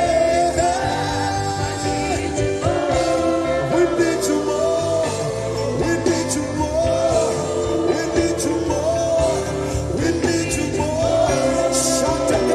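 Worship music with singing: held melodic notes that step between pitches, over a steady bass line and cymbal strokes.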